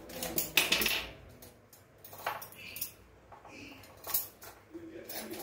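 Steel serving spoon clinking against stainless-steel plates and a pan as noodles are dished out: a few separate clinks, a quick cluster near the start and then single ones spread through the rest.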